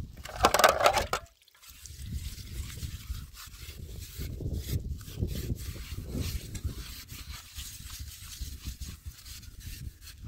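A scouring pad scrubbing a plastic plate by hand: a steady rough rubbing made of many short strokes. Near the start a brief, louder, sharper noise lasts about a second.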